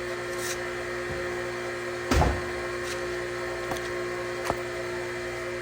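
Steady machine hum holding several fixed pitches, with a dull thump about two seconds in and a few light clicks and taps.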